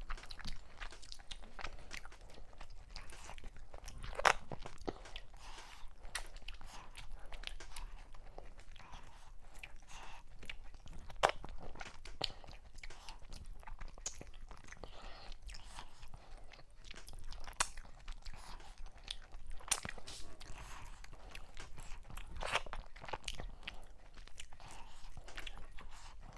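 Close-miked eating of fufu, mackerel and okra soup: steady wet chewing and crunching with lip smacks, broken by scattered sharp clicks, the loudest four of them spread through the stretch.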